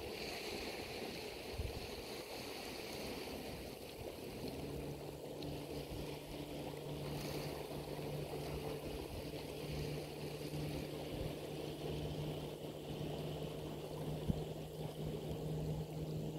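Shoreline ambience: shallow water moving among rocks, with wind and handling noise on the microphone. A steady low hum comes in about four seconds in and holds to the end.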